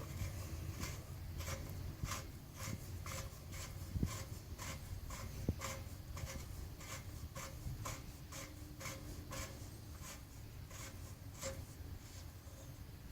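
A wrench working the compressor's wheel axle bolt tight in short repeated strokes, about two to three a second, with a faint click or scrape at each stroke. The strokes thin out near the end.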